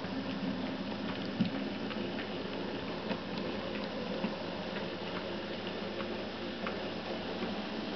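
H0-scale model steam tank locomotive and coaches running along the track: a steady motor hum and rolling rattle, with irregular small clicks as the wheels pass rail joints and points.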